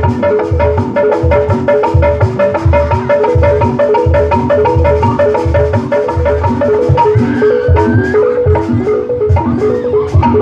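Jaipongan gamelan music played live: metal mallet instruments ring out a fast, repeated melody over deep drum strokes.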